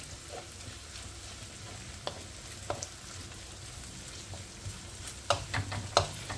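Diced chicken and green peppers sizzling as they fry in a frying pan, stirred with a wooden spoon. The spoon scrapes and knocks on the pan now and then, most often near the end.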